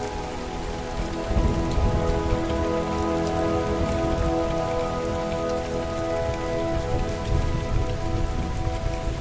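Steady rainfall, a dense patter over a low rumble. Under it, faint reverb-drenched music sounds as long, blurred held notes that swell and fade slowly.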